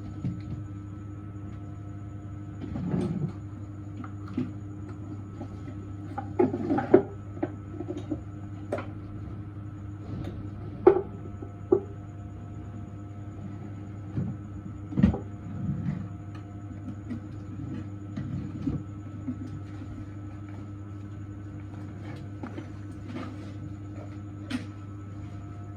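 A steady machine hum with several fixed tones, broken by a dozen or so short clicks and knocks. The loudest come about a quarter and about two fifths of the way through.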